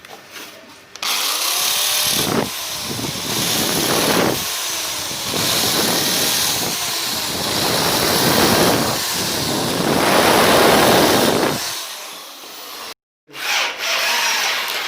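A power tool running on wood in long, loud stretches with brief dips. It stops about twelve seconds in and starts again briefly after a short break.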